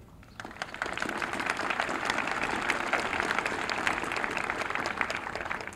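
An audience applauding, a dense spread of many hands clapping that builds up about half a second in and dies away near the end.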